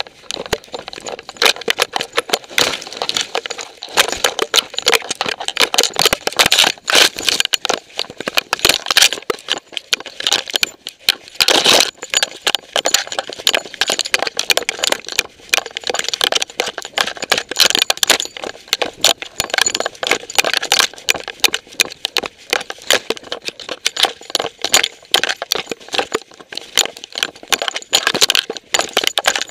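Dense, irregular rattling, knocking and scraping from a camera strapped to a running dog, jolted with each stride and brushing through vegetation.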